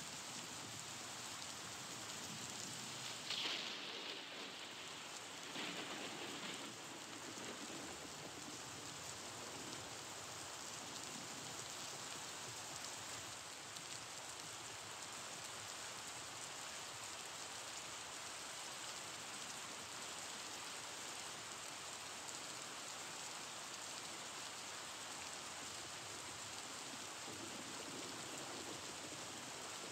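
Steady, even hiss like falling rain. Two brief louder rustles rise above it about three and a half and six seconds in.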